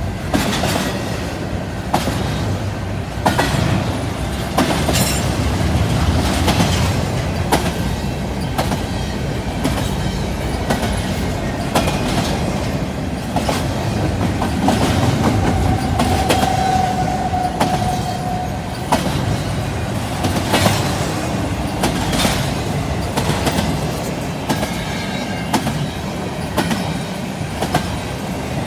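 Double-stack intermodal well cars of a freight train rolling past on steel rails: a steady rumble with regular wheel clicks about once a second, and a short steady squeal about halfway through.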